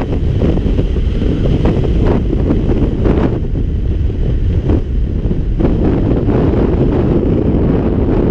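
Airflow from paraglider flight buffeting the camera microphone: a loud, steady low wind noise with short gusty surges.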